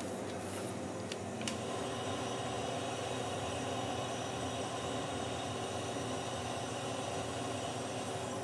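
Steady roar of a neon bender's gas ribbon burner running continuously, with a few faint light clicks of glass tubing in the first second and a half.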